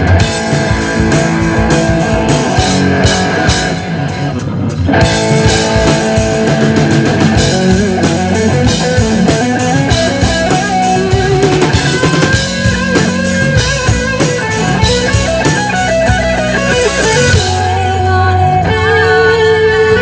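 Live heavy metal band playing: electric guitars over a drum kit, with the band thinning out briefly about four seconds in before coming back in full.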